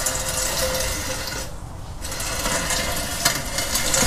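Rear axle housing being slid along the ground under a truck on its supports: a steady rattling scrape in two stretches, broken by a short pause about a second and a half in.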